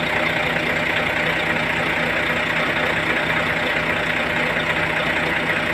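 Heavy truck engine idling steadily, an even hum with a constant hiss over it.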